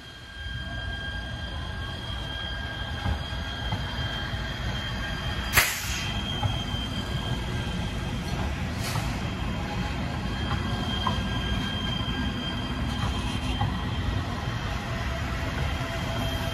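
LA Metro Kinkisharyo P3010 light-rail train running past close by, with a steady low rumble under a thin, steady high squeal. There is a sharp clank about five and a half seconds in and a fainter one a few seconds later.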